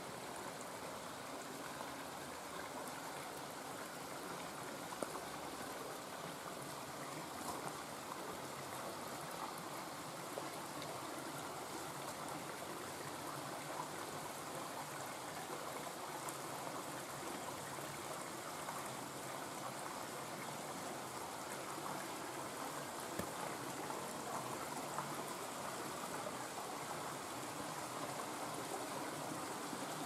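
Shallow rocky creek running and trickling over stones, a steady rush of water, with a few light knocks, the clearest about five seconds in.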